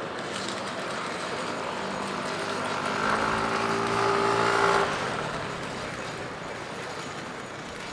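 A motor vehicle's engine passing close by, growing louder for about three seconds and then falling away quickly, over the steady hubbub of a busy street with voices.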